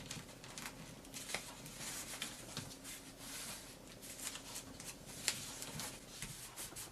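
A sheet of origami paper being folded and creased by hand: faint rustling and crinkling with many small crackles as a flap is folded over to the center crease.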